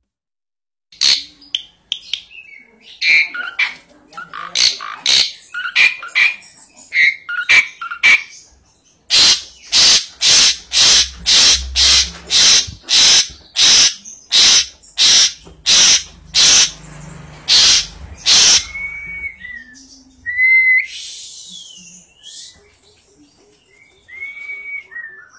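Asian pied starling (jalak suren) calling. It opens with a run of varied chirps and whistles, then gives a string of about fifteen harsh, evenly spaced calls, and ends with a few short whistles.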